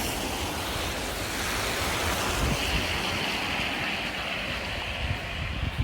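Strong wind blowing during a snowstorm, buffeting the microphone with a steady rushing noise and an uneven low rumble.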